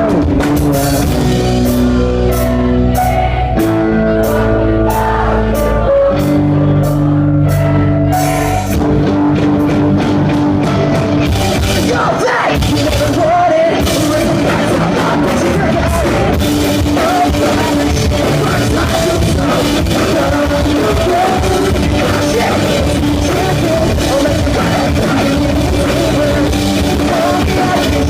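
Pop-punk band playing live: distorted guitars, bass and drum kit, with singing. It opens on held chords over steady drum hits, and the full band drives on with vocals through the second half.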